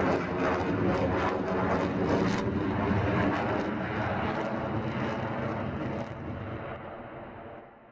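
Su-35 fighter jet engines running loudly in flight, a dense jet noise that fades away over the last couple of seconds.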